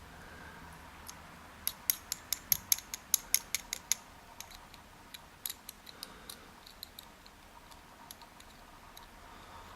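Small metal padlock parts and tools clicking as they are handled: a quick run of about a dozen sharp clicks a couple of seconds in, then lighter, scattered clicks.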